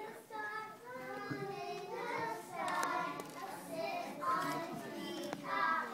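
Young children singing.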